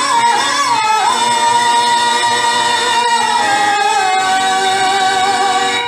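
Male voice singing a Telugu padyam (stage verse) to harmonium accompaniment. After a wavering, ornamented opening it holds one long drawn-out note, stepping down slightly twice.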